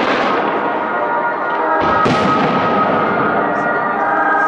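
Fireworks display: dense, continuous crackling and popping of bursting shells, with a fresh loud burst about two seconds in.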